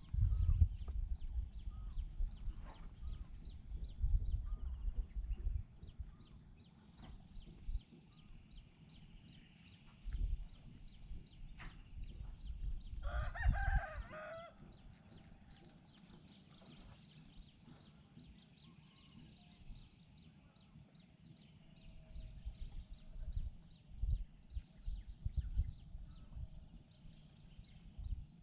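A rooster crows once, about halfway through. Intermittent low rumbles of wind buffet the microphone.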